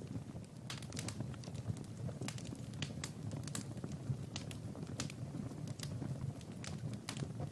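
Wood fire in a fireplace crackling, with irregular sharp pops several times a second over a steady low rumble of burning.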